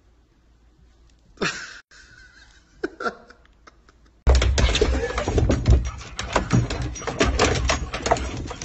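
A dog scrambling through a plastic tube slide: rapid clattering and knocking of paws and claws on hard plastic, with a low rumble. It starts suddenly about four seconds in, after a few faint short knocks.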